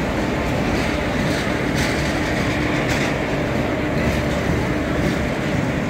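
Electric locomotive running: a steady, dense mechanical din with a constant hum.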